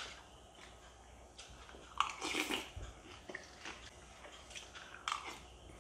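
A person eating shredded wheat cereal, softened in milk, from a bowl with a spoon: a few soft spoon and chewing sounds, the loudest about two seconds in.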